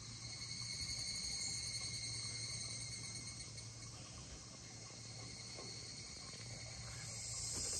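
Insects trilling in a steady outdoor chorus, growing louder toward the end, over a faint low hum.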